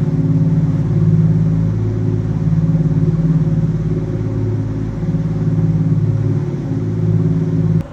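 A motor yacht's diesel engines running steadily at cruising speed: a loud, deep, even drone that cuts off abruptly near the end.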